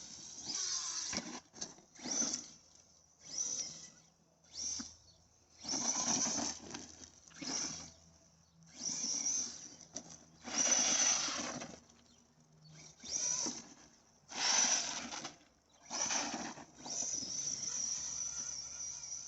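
Electric RC monster truck, an Arrma Big Rock, driven in short throttle bursts. About a dozen separate rushes of motor and tyre noise, each half a second to a second long, with brief pauses between them.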